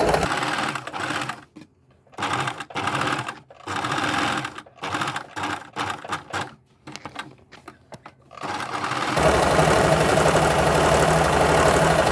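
Domestic electric sewing machine stitching in short stop-start bursts with brief pauses, then running steadily without a break from about nine seconds in.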